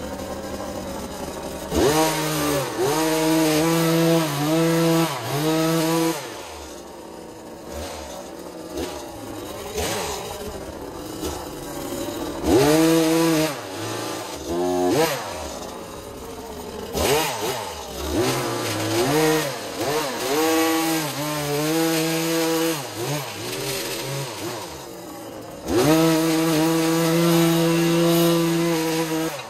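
Small two-stroke petrol engine of a handheld garden power tool, revved up and down in repeated bursts between lower running, then held at high revs for the last few seconds.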